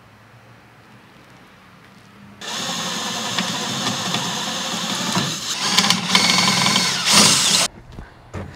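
A handheld power tool, most likely a drill, runs for about five seconds, then cuts off suddenly.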